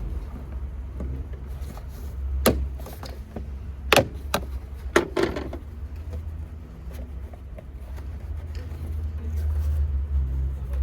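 Mercedes-AMG GT43's turbocharged inline-six idling with a steady low hum, with a handful of sharp, irregular clacks around the middle.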